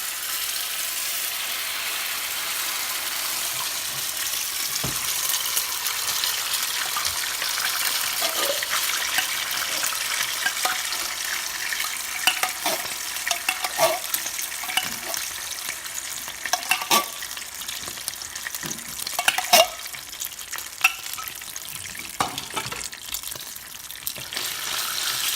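Butter sauce sizzling steadily in a hot nonstick pan while cream of chicken is stirred into it, a utensil clicking and scraping against the pan, more often in the second half.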